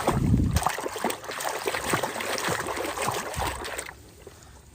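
Water splashing and trickling as a toy animal is rinsed by hand, with many small irregular splashes; it dies down near the end.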